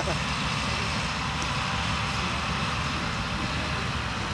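Farm tractors' diesel engines running steadily, a constant low rumble with no revving.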